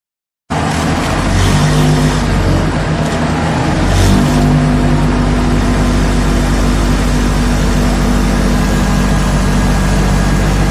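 Vibratory pile driver running: a loud, steady mechanical drone over a strong low hum, starting abruptly about half a second in, with a slight change in pitch about four seconds in.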